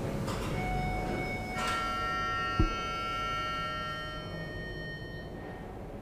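Passenger elevator's arrival chime: a first ringing note about half a second in, then a second, fuller note a second later that rings out and fades over about three seconds. A single short low thump comes just after the second note.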